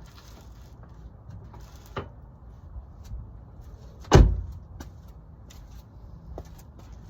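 A lighter knock about two seconds in, then one heavy thump with a short ringing tail about four seconds in, during work on a car's front wheel and CV axle.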